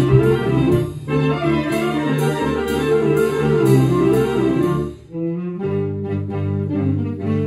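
Saxophone orchestra with percussion playing a fast, rhythmic passage with regular sharp percussion strokes. About five seconds in the percussion drops out and the saxophones go on alone, holding sustained chords.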